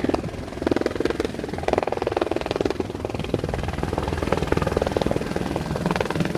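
Helicopter in flight, its rotor blades beating in a fast, even chop.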